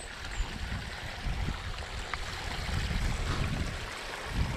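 Steady rushing hiss of water running in an irrigation ditch, under an uneven low rumble of wind on the camera microphone.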